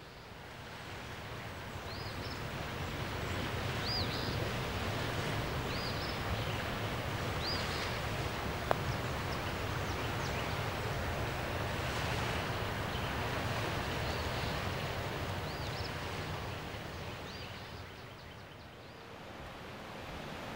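Wind gusting, swelling about a second in and dying away near the end, with a bird giving short high chirps every second or two and a single sharp click about nine seconds in.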